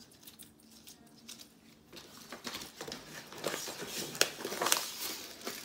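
Paper sugar bag crinkling and rustling as it is unfolded and opened, with a few sharp clicks, starting about two seconds in.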